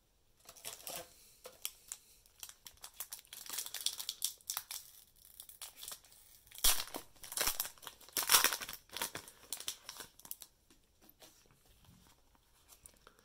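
Foil wrapper of a Pokémon card booster pack being torn open and crinkled: a run of irregular rustles and short rips, the loudest a little past halfway.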